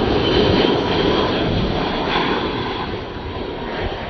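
Embraer E175's twin turbofan jet engines on final approach: a steady jet rumble with a thin whine, loudest in the first second and easing off as the jet passes and descends toward the runway.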